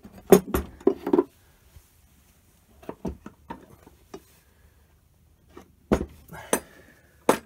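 Clinks and knocks of metal lathe-apron parts being handled and shifted on the bench. There is a quick cluster in the first second, a few lighter taps around three seconds in, and three sharp knocks in the last second and a half.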